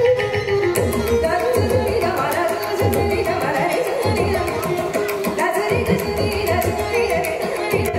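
Live Carnatic music: a woman singing a melodic line with violin and mridangam accompaniment. Regular sharp percussion strokes come in about a second in.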